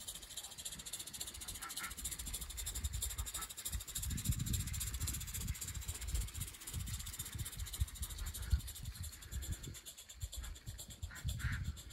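IP Engineering 'Jane', a small oscillating-cylinder live steam garden locomotive, running under steam with a rapid, even hissing exhaust beat. An uneven low rumble comes and goes through the middle.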